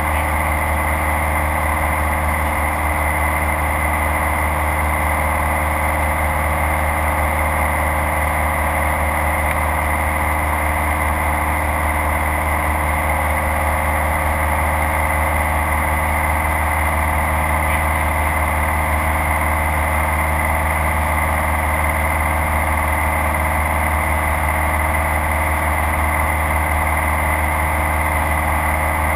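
Light single-engine airplane's piston engine and propeller droning steadily in flight, heard from inside the cabin.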